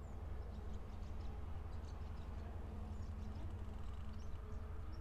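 Outdoor garden ambience: a steady low rumble and faint hum, with scattered faint, short high chirps.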